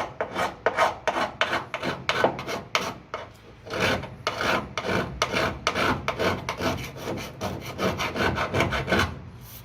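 Hand file rasping across a steel weld bead on a car door sill in rapid back-and-forth strokes, about three a second, taking down the high spot of the weld to level the patch repair.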